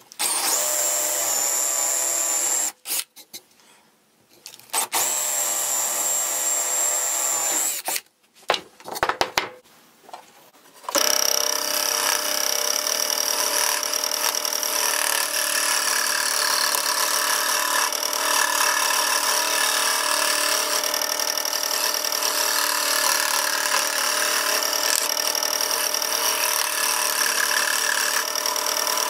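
A power drill with a spade bit boring through half-inch plywood in two runs of a few seconds each, with short handling knocks between them. About a third of the way in, a Performax scroll saw starts and runs steadily, its blade cutting the plywood, with a high whine and a rattle.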